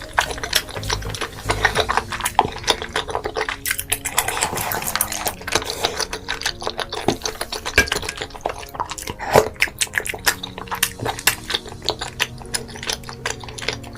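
Close-miked eating sounds: wet chewing, smacking and squishing of food, with many quick irregular clicks and some liquid sounds.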